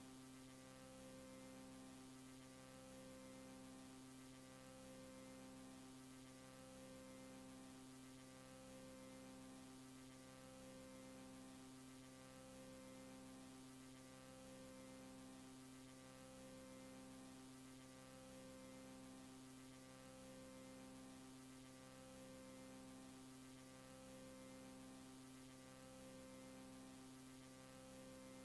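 Near silence: a faint electrical mains hum on a VHS tape's otherwise silent soundtrack. It is a steady buzz of several tones, with part of it pulsing about once a second.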